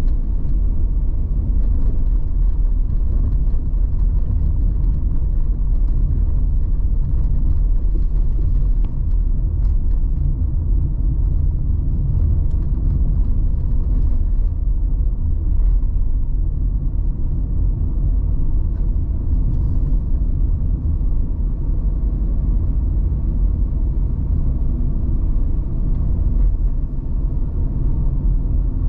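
Steady low road rumble and engine hum of a car cruising at an even speed, heard from inside the cabin.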